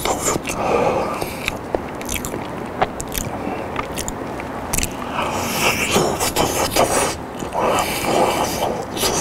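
Close-miked biting and chewing of a soft boiled potato: mouth sounds with many small clicks and smacks, picked up by a lapel microphone on the chest.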